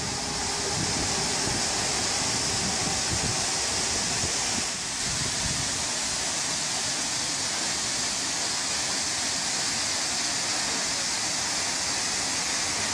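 Steady rushing hiss of a high-pressure water jet gushing from a burst water main and spraying high into the air.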